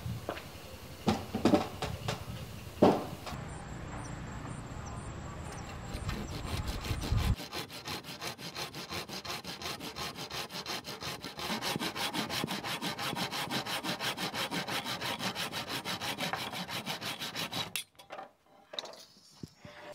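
Hand saw cutting wood with a long run of rapid, even back-and-forth strokes, after a few sharp knocks in the first seconds.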